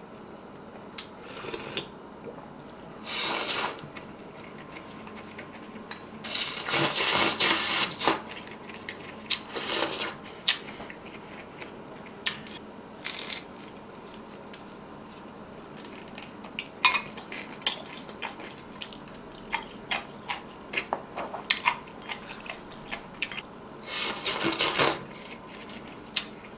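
Close-miked eating of fried food: several loud bites and chews, and a dense run of sharp crunches in the middle, with chopsticks clinking on dishes.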